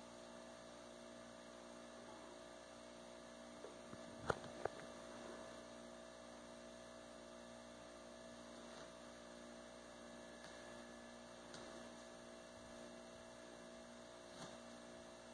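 Quiet room with a steady electrical mains hum, and two sharp clicks about four seconds in.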